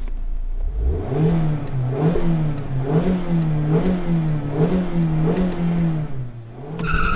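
Mazda MX-5 RF's two-litre four-cylinder engine held at high revs before a launch, the revs rising and dipping about once a second, six times. Near the end the revs drop and a high steady squeal begins as the car sets off.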